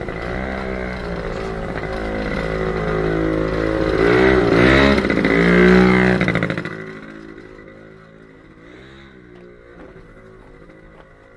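A motor vehicle engine passing close by, revving up and down. It is loudest about five to six seconds in, then falls away quickly, leaving a much quieter street background.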